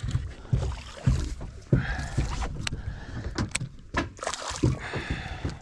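Water lapping and slapping against a boat's hull with scattered knocks and clicks, while a baitcasting reel is cranked to bring a fish up.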